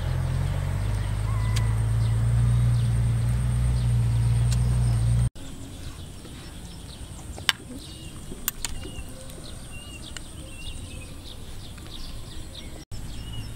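A low steady rumble for about five seconds, cut off abruptly. After it, birds chirp in short repeated calls, with a couple of sharp clicks.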